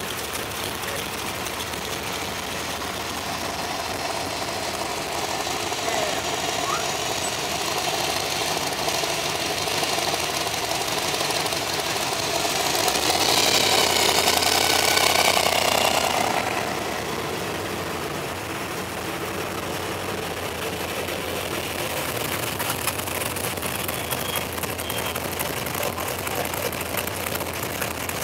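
Classic cars and hot rods driving slowly past one after another with their engines running. The engine sound is loudest about halfway through, when a hot rod with an exposed supercharged engine passes close by.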